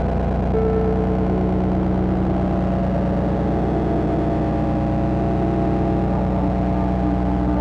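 Experimental electronic music: a dense, sustained synthesizer drone over a deep bass tone, with held notes that shift slowly.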